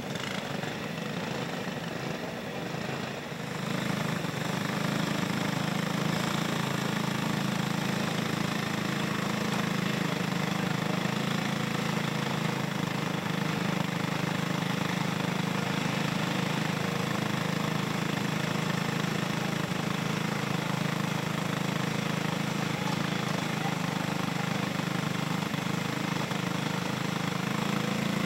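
Several go-kart engines running together on a dirt oval, a steady buzzing drone that gets louder about three and a half seconds in and then holds.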